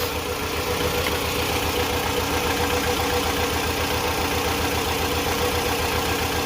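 Toyota RAV4 engine idling rough with a steady, fast low pulsing: a misfire on cylinder 2 (code P0302), which the owner traces to a bad fuel injector.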